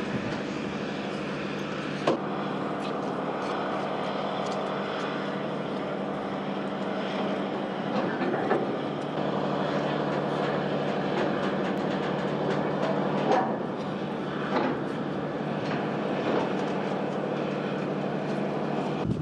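Steady engine drone of the train hauling a Soyuz rocket on its rail transporter, with a few sharp clanks from the rail cars.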